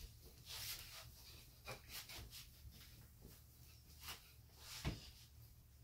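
Faint rustling of clothes and soft footfalls from a person moving about, with a dull thump about five seconds in.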